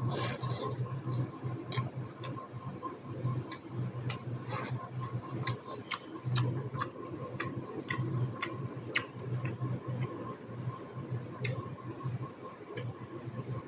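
Close-miked chewing of buffalo innards curry: a noisy burst at the start, then a run of sharp wet clicks and mouth smacks, several a second through the middle and sparser near the end, over a steady low hum.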